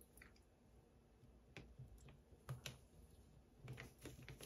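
Near silence broken by a few faint, scattered clicks and taps as the tip of a heated wax-painting stylus touches down on the card.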